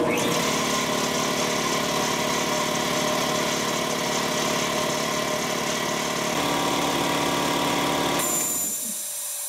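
Sanborn 60-gallon upright shop air compressor, an electric motor driving a piston pump, running steadily as the tank pressure builds. About eight seconds in, the pressure switch reaches the 125 psi cutout: the motor stops and the unloader gives a short hiss of air. The hiss is the bleed of only the head and transfer-line pressure, a sign the repaired check valve is holding the tank.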